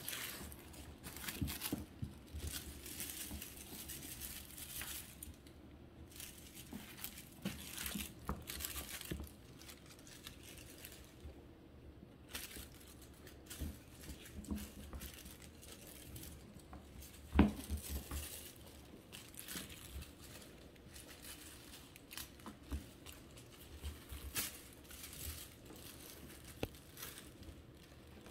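Irregular rustling and crinkling of a feather wand toy as a kitten bats at it and bites it, with scattered light taps from its paws on the rug. There is one sharper knock about 17 seconds in.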